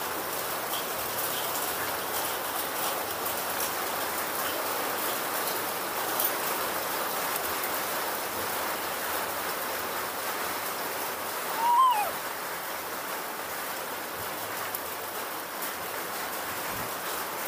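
Steady rain falling, an even hiss, with a short high chirp about twelve seconds in.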